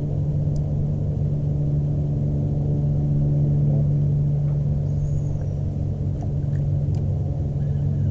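Electric trolling motor running at a constant slow speed, a steady low hum that does not change in pitch.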